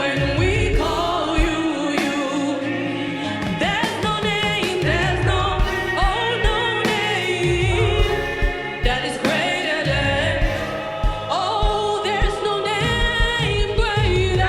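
Gospel praise music: singers with a backing band and a steady drum beat.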